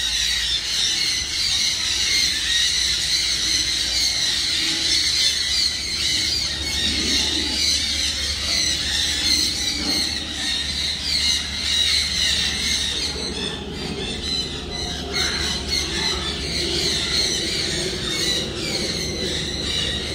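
A dense, steady chorus of many birds chirping high and continuously, with a low rumble underneath.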